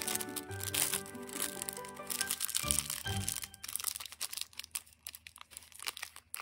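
Small sealed plastic packet crinkling and crackling as it is handled and torn open by hand. Background music plays under it for the first half, then stops.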